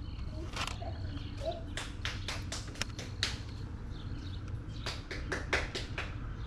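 Plastic CD jewel cases clacking against each other as they are handled in a CD tower stand: a quick run of sharp clicks, then a second run a couple of seconds later, over a low steady background rumble.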